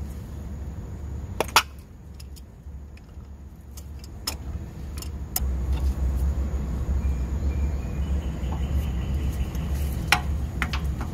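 Sharp metallic clicks and clinks of channel lock pliers and brass gas fittings as an old RV propane regulator is unscrewed and taken off, the loudest click about one and a half seconds in. A steady low rumble underlies it, growing louder about halfway through.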